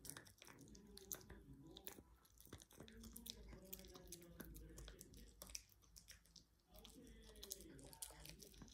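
A small dog gnawing on a stick-shaped dog chew held in a hand: faint, irregular clicking and crunching bites.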